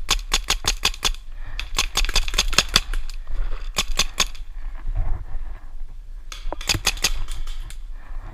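Paintball marker firing in rapid volleys of about eight shots a second, four bursts with short pauses between them.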